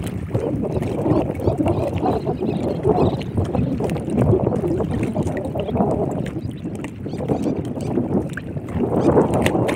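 Wind rumbling on the microphone over water lapping against the side of a small open boat: a steady, uneven noise with no speech.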